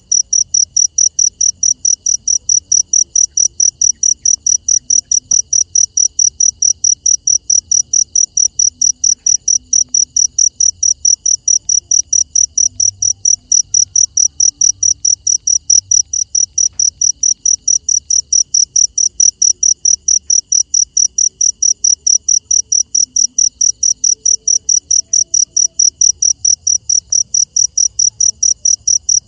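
Cricket chirping steadily, a high-pitched chirp about four times a second without a break, with a faint steady high tone behind it.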